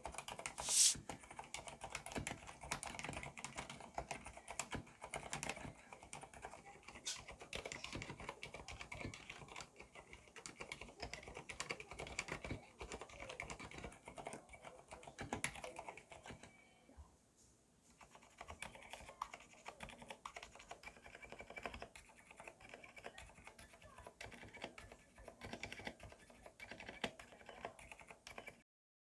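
Faint, continuous typing on a Cherry MX Board 2.0S Wireless mechanical keyboard with Cherry MX Silent Red switches, a dense run of quick keystrokes. There is one sharper click about a second in and a short pause a little past halfway.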